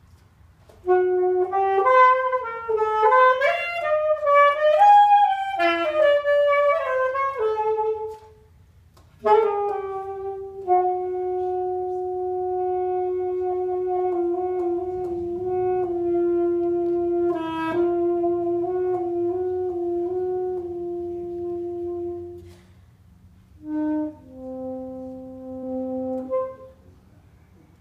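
Alto saxophone played solo and freely: a quick run of notes climbing and falling, a short pause, then one long held note of about twelve seconds, then two short lower notes near the end.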